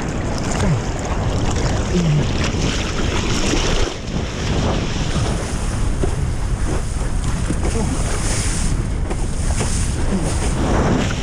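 Strong wind buffeting a GoPro microphone, mixed with breaking surf and water sloshing around the camera at sea level. The noise is loud and continuous.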